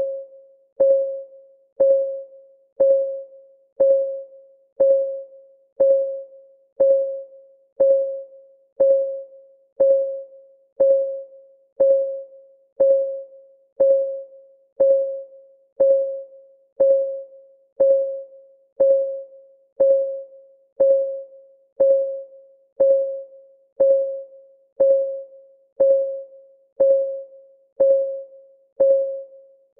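Clock-ticking sound effect of a countdown timer, ticking steadily once a second; each tick is a sharp click with a short, mid-pitched ring that fades quickly.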